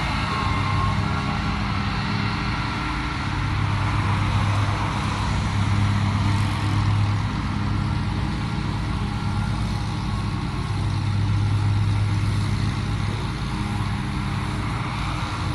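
Motor vehicle engine running steadily: a low, even hum over a haze of traffic noise, swelling a little twice.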